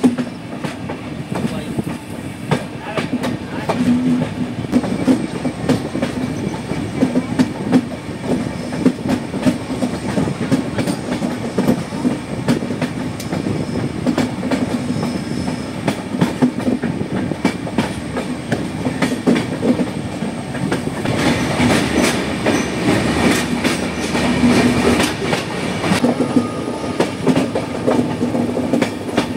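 Passenger train running, heard from aboard: a steady rumble of wheels and running gear with frequent clicks over the rail joints. It grows louder and harsher for a few seconds about three-quarters of the way through.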